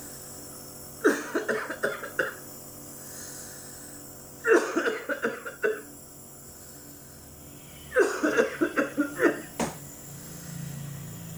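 A person coughing in three bouts of several rapid coughs each, about every three and a half seconds, to bring up thick phlegm during nebulizer inhalation. Between the bouts a steady hum from the nebulizer's compressor can be heard.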